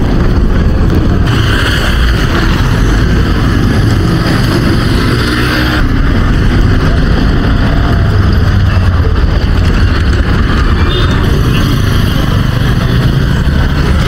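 Road traffic on a dirt road: car, lorry and auto-rickshaw engines running past close by, over a steady low rumble.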